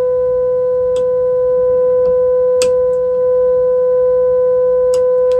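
Steady single tone from the 1938 Zenith 6S249 radio's loudspeaker: the signal generator's modulation tone coming through while the set's IF stage is aligned at 456 kHz. A few brief clicks sound over it.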